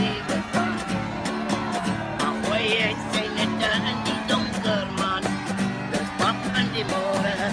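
Background music: an upbeat country-style tune on plucked guitar over a steady beat.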